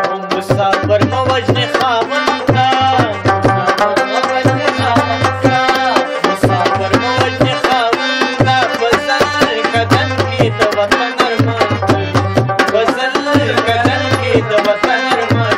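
Dholak, a two-headed barrel drum, played by hand in a fast, busy rhythm with regular deep bass strokes. A wavering melody and a steady drone run with it.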